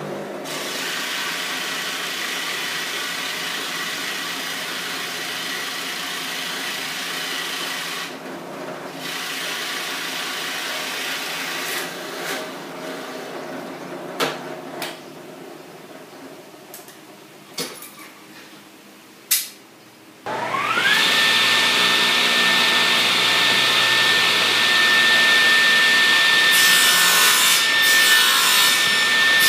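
Bench drill press running with a 1⅜-inch Forstner bit boring holes into a wooden board, with a short pause about eight seconds in and a quieter stretch with a few sharp clicks. About twenty seconds in a table saw starts, its whine rising quickly to a steady high pitch, and from about twenty-six seconds its blade is cutting the board.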